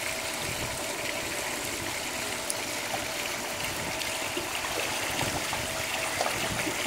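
Steady trickling, lapping pool water as a child swims through it with fins.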